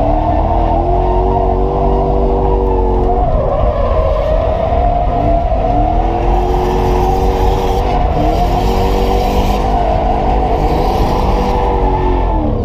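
Toyota 1UZ-FE 4.0 L V8 in a Nissan 240SX (S13), heard from inside the cabin during a drift run, revving up three times with a drop in revs after each climb, over steady tyre squeal.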